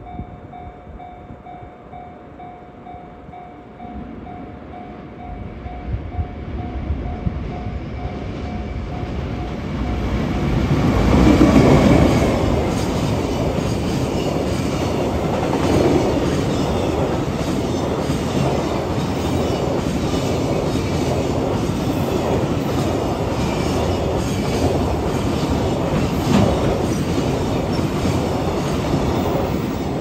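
Container freight train hauled by a JR Freight EF510 electric locomotive passing close by. The sound builds as the train approaches, is loudest as the locomotive goes past about a dozen seconds in, then the long run of container wagons clatters steadily over the rail joints. At the start a level-crossing warning bell rings with a steady repeating tone, soon drowned out by the train.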